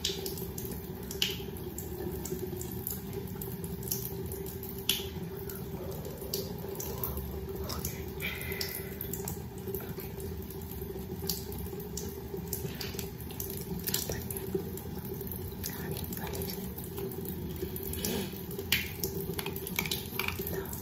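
Scattered small clicks and taps of a plastic pregnancy test and its wrapper being handled, over a steady low hum in a small bathroom.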